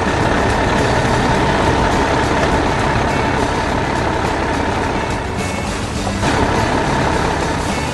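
Excavator engine running steadily, with background music underneath.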